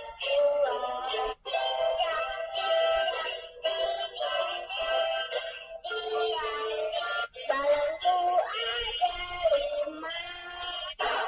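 Talking Tom 3 talking-cat doll singing a children's song through its built-in speaker in a high, synthetic cartoon-cat voice over a music backing. The song breaks off briefly a few times and stops abruptly at the end.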